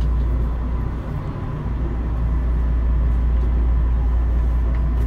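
Running sound of a Tobu 9050 series electric train, heard inside the motor car MoHa 9552: a steady low rumble of the wheels and running gear at a constant pitch, dipping slightly about a second in.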